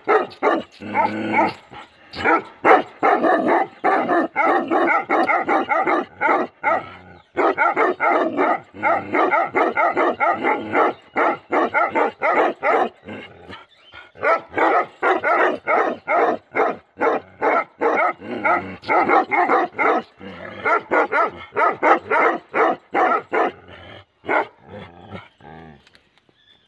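Bhotiya dogs barking rapidly and almost without pause, several barks a second. There are short breaks about seven and fourteen seconds in, and the barking thins out near the end.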